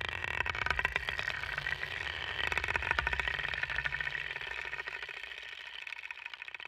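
Small motor of a door-hanging Moody Pet Fling cat toy running, a low whirr with rapid ticking as it drives the lure string along its slot. It grows louder up to about three seconds in, then fades.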